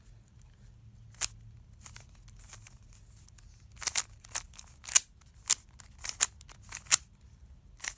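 Rubik's cube layers being turned by hand: sharp plastic clicks, one about a second in, then a quick run of clicks in the second half.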